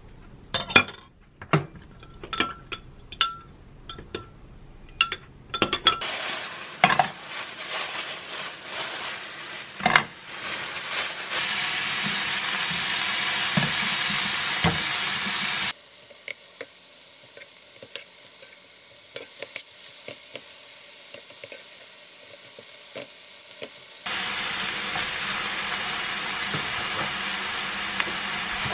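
A metal spoon clinking against a glass beaker as a sauce is mixed, in a run of sharp clicks. Then thin slices of beef sizzle in a frying pan; the sizzling cuts off abruptly partway through and starts again near the end.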